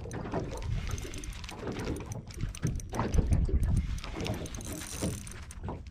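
Water lapping and slapping against the hull of a small aluminium boat, with wind on the microphone and the light clicking of a spinning reel being wound in.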